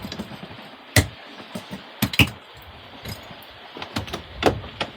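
Sailboat deck hardware and rigging clinking and knocking as sails and lines are handled: about five sharp metallic clicks and knocks over a steady rush of background noise.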